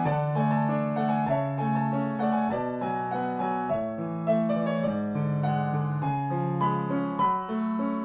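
Background music played on piano: a melody of changing notes over low notes held for about a second each.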